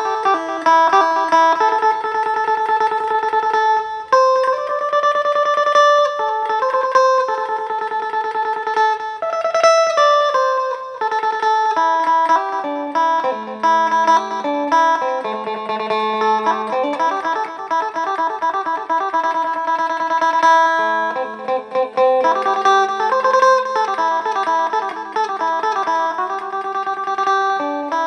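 Phin, the Isan Thai plucked lute, played solo as a try-out of its sound: a quick melody of plucked notes, with a steady low drone note under the tune from about halfway through.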